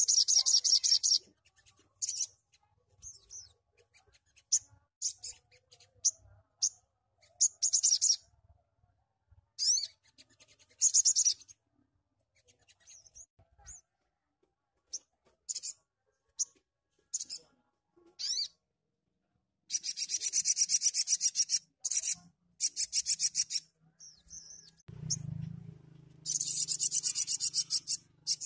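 Male olive-backed sunbird singing: bursts of rapid, high-pitched trilling a second or two long, with single sharp chirps between them.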